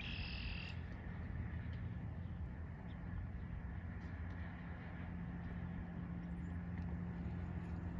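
Steady low outdoor rumble, with a low steady hum coming in about three seconds in.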